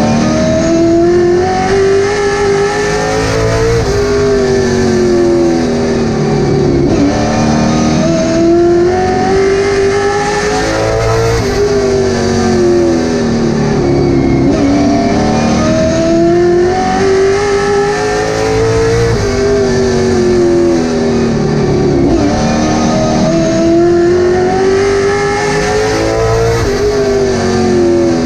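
Late model stock car's V8 engine at racing speed, heard from inside the cockpit. The engine note climbs steadily for a few seconds along each straight, then drops sharply as the driver lifts for the turns, over and over.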